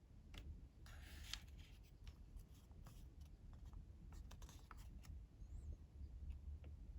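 Square of colored origami paper being handled and folded: faint crinkles and small sharp clicks, with short rustles about a second in and again about four and a half seconds in.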